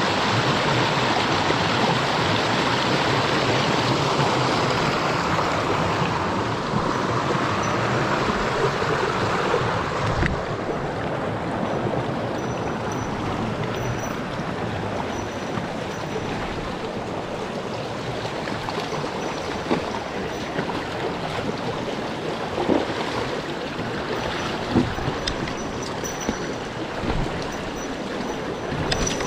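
Mountain stream water rushing over rocks as a steady noise that softens about ten seconds in. A few faint short knocks are heard later on.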